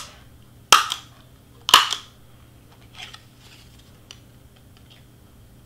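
Handheld plier-style hole punch snapping shut through glitter cardstock, widening a punched hole: two sharp clicks about a second apart, then a couple of much fainter clicks.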